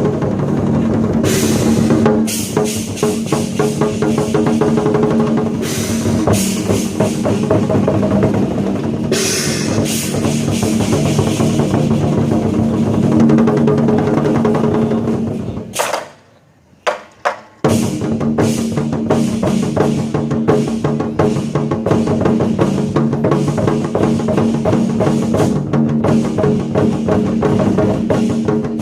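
Chinese war drum ensemble (zhangu) playing together in dense, fast strokes. About 16 s in the playing stops for a moment, with three single strokes, then the full ensemble comes back in.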